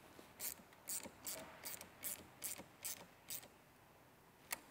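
Hand ratchet with a socket on an extension clicking as it turns a nut on the battery terminal's fuse-block stud: a run of sharp clicks, about two or three a second, that stops a little past halfway, then one more click near the end.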